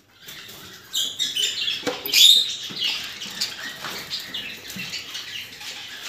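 Budgerigars giving short high chirps and squeaks amid scratchy rustling, with a few light knocks; the chirping is loudest about two seconds in.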